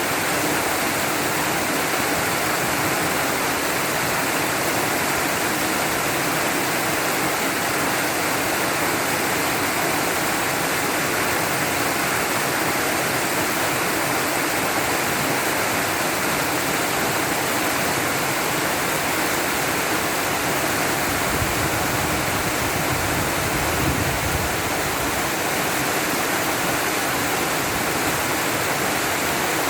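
Small waterfall: water falling and splashing in a steady, even rush. A low rumble rises under it for a few seconds about two-thirds of the way through.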